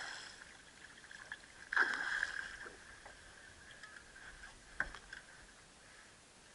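A hooked redfish (red drum) thrashing and splashing at the water's surface, twice in the first two seconds, the second splash the louder. A single sharp knock comes near the end.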